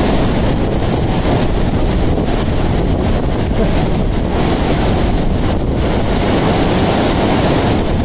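Loud, steady rush of a fast glacial meltwater torrent churning over boulders.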